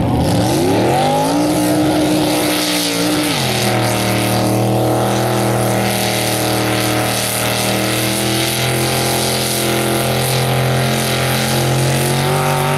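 Mega truck engine run hard through deep mud: it revs up over the first second and a half, holds high, drops to a lower pitch about three and a half seconds in, then runs at steady high revs. A hissing spray of mud and tyres runs under it.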